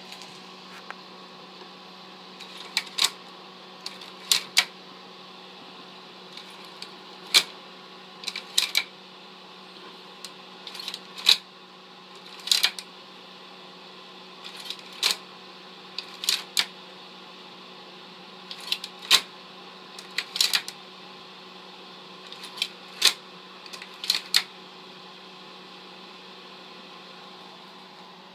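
Argus 300 35 mm slide projector running with a steady hum, while its slide changer is worked: sharp mechanical clicks, often in pairs, every second or few, as slides are cycled through. The clicking stops a few seconds before the end.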